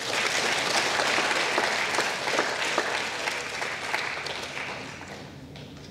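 Audience applauding for award winners. The clapping starts at once and dies away near the end.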